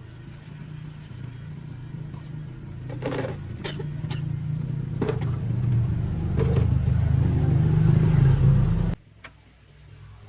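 An engine running with a low, steady rumble that grows louder over several seconds, with a few sharp knocks along the way, then stops abruptly about nine seconds in.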